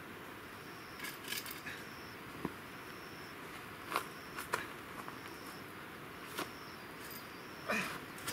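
A few short clicks and rustles from handling the fittings at the base of a canvas tent, over an insect's high chirping that comes and goes in the background.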